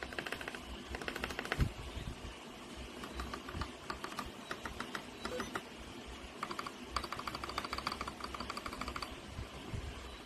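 Fast typing on a mechanical keyboard: runs of quick key clicks in bursts, with short pauses between them.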